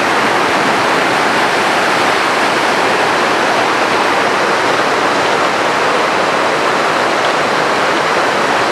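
Mountain stream in flood, swollen by heavy monsoon rain, rushing over rocks and boulders: a loud, steady rush of water.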